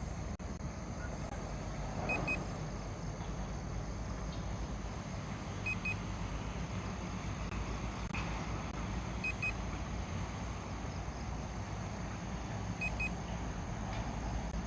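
Steady low rumble and hiss of background noise, with a faint double beep recurring about every three and a half seconds from the drone's remote controller.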